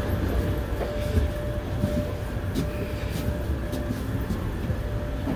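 Steady low rumble of passengers walking up an airport jet bridge, with scattered footfalls and a faint steady hum that fades about two seconds in.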